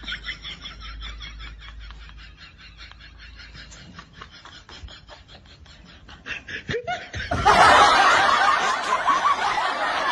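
Laughter: quiet, rapid breathy snickering, then loud laughter breaking out about seven seconds in.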